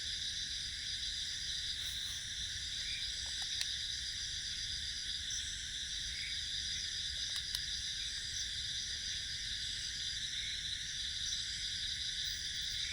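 Steady chorus of night insects such as crickets, a dense high shrill with a gently pulsing layer, over a low rumble with a few faint clicks.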